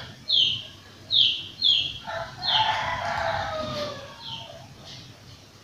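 Birds calling: short high chirps that come in pairs, repeating every second or so, and one longer, lower call of about two seconds in the middle that falls in pitch near its end.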